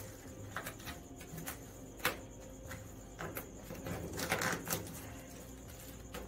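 Scattered light clicks and taps of hands handling small tools and tape on a vinyl-wrapped car hood. The sharpest click comes about two seconds in, with a cluster of taps a little after four seconds.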